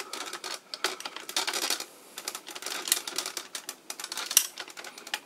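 Hard plastic parts of a 1993 TOMY DX Gran Saurer transforming robot toy clicking and clacking as it is handled and its pieces are snapped into place, a string of irregular sharp clicks with the loudest about four seconds in.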